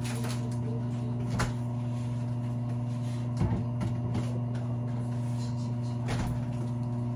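Steady low electrical hum with a few brief knocks about a second and a half, three and a half, and six seconds in.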